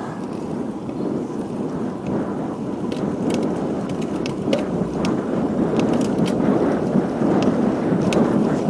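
Wind buffeting the camera microphone on a road bike moving at speed: a low, dense rush that grows louder, with scattered faint clicks over it.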